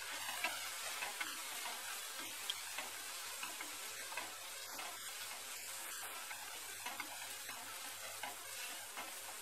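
Chopped tomatoes and spices frying in oil in a non-stick kadai: a steady sizzle, with the irregular scrape and tap of a wooden spatula stirring them.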